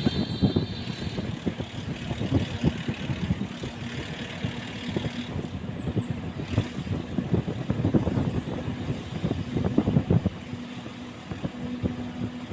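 A motor vehicle running, with an irregular low rumble and knocking.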